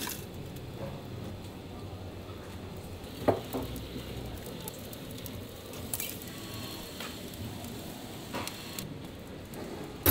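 Steady background room noise with a few scattered clicks and knocks. The sharpest knock comes about three seconds in.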